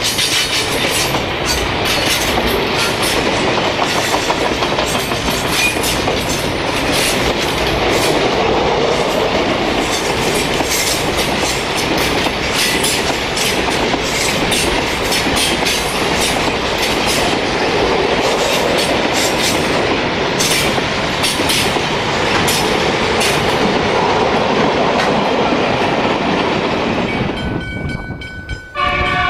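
Freight wagons of a long train (container flat wagons, then grain hopper wagons) rolling past at speed: a steady rail rumble with frequent clicks and clatter of wheels over the rail joints. Near the end the sound cuts off abruptly and a train horn begins to sound.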